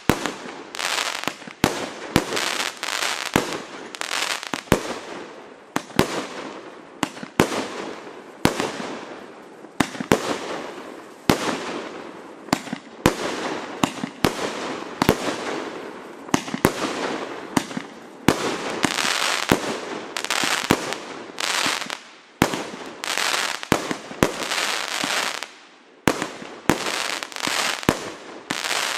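A 200-shot 30 mm (1.2") compound fireworks cake firing in rapid sequence, about two sharp shots a second, with the fizzing crackle of bursting stars between them.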